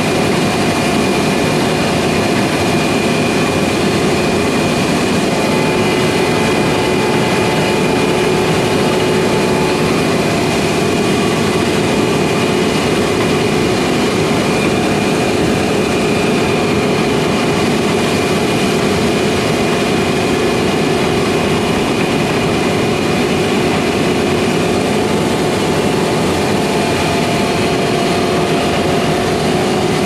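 Steady, unbroken machine hum with a constant high whine over it.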